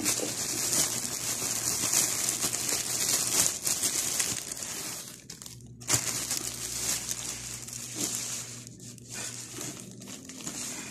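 Thin clear plastic bag crinkling and rustling as hands handle the bread rolls inside it. It is loudest over the first five seconds and quieter after, with one sharp tap about six seconds in.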